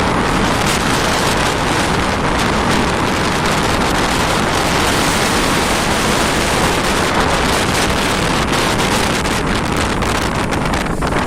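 Strong wind blowing hard and buffeting the microphone: a loud, steady rushing noise with crackling from the gusts hitting the mic.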